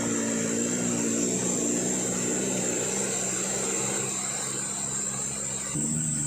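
Toyota Dyna truck's diesel engine droning under heavy load as it labours up a climb. Near the end the engine note changes abruptly and grows slightly louder.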